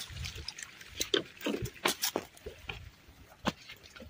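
Blue mesh keep net full of small live fish being handled on stones: a handful of short, scattered taps and rustles as the net and fish shift against the rocks.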